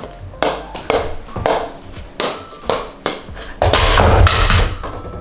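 A light ball bouncing off a wooden paddle in sharp taps, about two a second, with music playing; near the end the music swells with a heavy bass.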